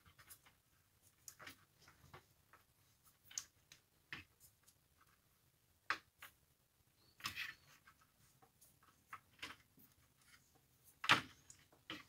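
Vinyl electrical tape being pulled off the roll and wrapped around a spliced power-cord joint: scattered soft crackles and small handling clicks, the loudest a short crackle near the end.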